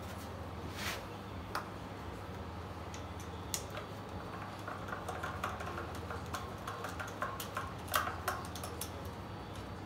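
Small metallic clicks and taps, with a run of rapid light ticks in the middle, as a compression-tester hose and its fitting are handled and fitted to the cylinder head of a diesel V6 engine. A steady low hum lies underneath.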